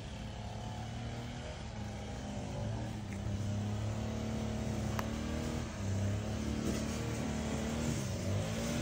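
A vehicle engine running steadily, its low hum shifting up and down in pitch.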